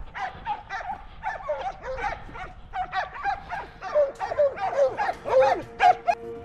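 Hunting dogs baying on a wild boar hunt: rapid, overlapping yelps, each dropping in pitch, about three or four a second, growing louder toward the end.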